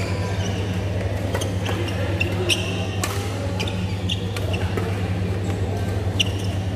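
Badminton rally on an indoor court: sharp racket-on-shuttlecock hits and short shoe squeaks on the court floor every second or so, the loudest hit about three seconds in, over a steady low hum in a large hall.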